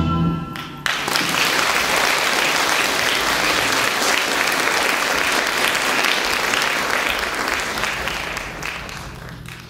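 The last notes of a live band die away and an audience breaks into applause just under a second in; the clapping holds steady, then fades out near the end.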